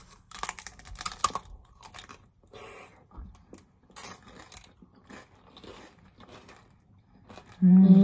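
Close biting and chewing of a fruit roll-up wrapped around ice cream: crisp crunching and crackling clicks, thickest in the first second and a half, then scattered. Near the end a woman's loud drawn-out vocal sound, falling in pitch.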